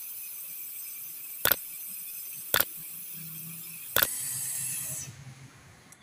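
Brazing torch flame hissing steadily while sealing a copper refrigerator process tube, fading out about five seconds in. Three sharp clicks sound about a second and a half in, a second later, and again near four seconds.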